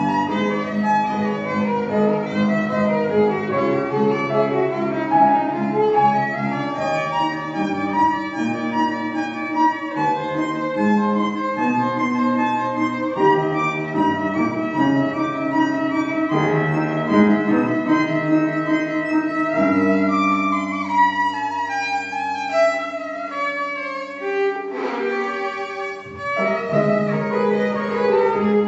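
A violin playing a piece with piano accompaniment, with a short break about three seconds before the end.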